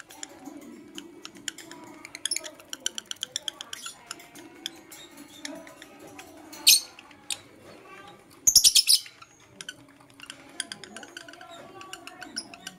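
Lovebirds chirping: a quick run of short, high chirps, a few louder single calls, and a brief burst of loud, shrill calls past the middle.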